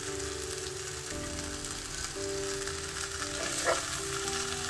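Hilsa fish steaks and dry masala sizzling in oil in a frying pan while a spatula turns them. Soft background music with held notes plays underneath.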